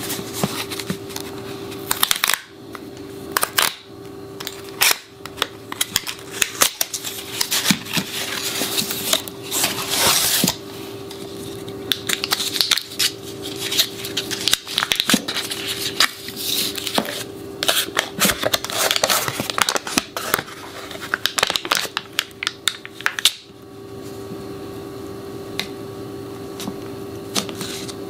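Close-miked crinkling, crackling and tearing of a butter block's foil-lined wrapper and cardboard box as it is unwrapped, a dense run of sharp rustles that dies down about 23 seconds in. A faint steady hum runs underneath.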